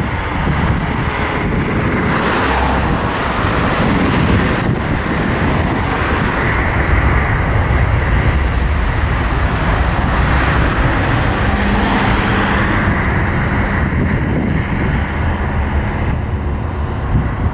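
Airbus A321 twin jet engines at takeoff power: a loud, steady rushing noise as the airliner rolls down the runway, lifts off and climbs away.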